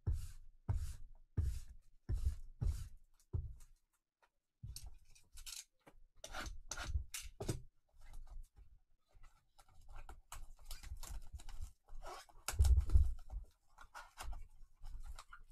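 Plastic shrink-wrap being torn and peeled off a sealed trading-card hobby box by gloved hands: irregular crinkling and tearing, with cardboard rubbing. It starts with a run of regular rubbing strokes for the first few seconds, then a short pause.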